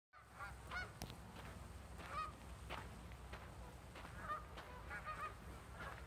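A flock of geese honking, many short calls overlapping irregularly, over a steady low rumble.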